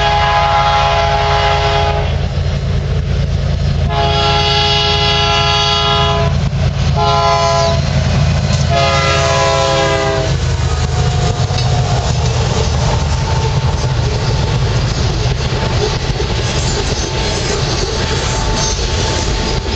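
Locomotive horn of a BNSF GE ES44AC sounding the grade-crossing signal, long, long, short, long, as the coal train approaches. Then the diesel locomotives run past close by, followed by loaded coal hopper cars with wheels clattering over the rails.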